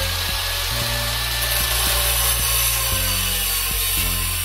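Heavy metal music with distorted guitar over a bass line that changes note every second or so.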